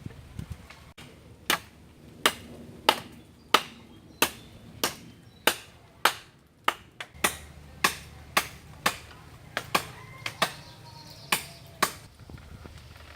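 Steady chopping with a blade on wood: about twenty sharp strokes at roughly one and a half a second, starting about a second and a half in and stopping near the end.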